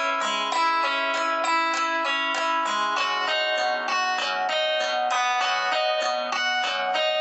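Background music: a guitar picking steady, quick repeated notes, about five a second.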